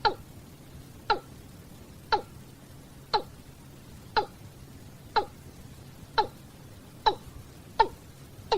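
Watercock (cúm núm) giving its deep flock-calling note over and over, about once a second, each call a short falling note. The calls come slightly quicker near the end.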